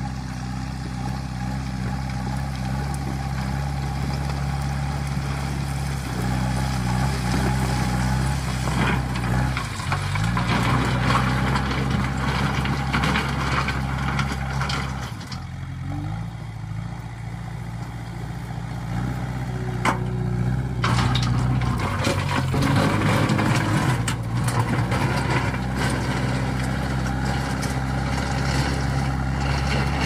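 JCB 3DX backhoe loader's diesel engine running under load as its front bucket pushes and spreads loose stones, with the scrape and clatter of rock underneath. The engine eases off about halfway through and picks up again a few seconds later.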